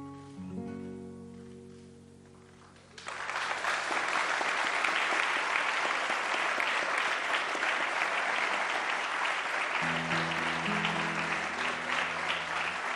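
The final acoustic guitar chords of the song ring out and fade. About three seconds in, the audience bursts into loud, sustained applause, with a few guitar notes sounding beneath it near the end.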